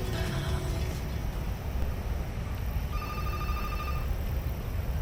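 A telephone ringing once, a trilling electronic ring lasting about a second, about three seconds in, over a steady low rumble.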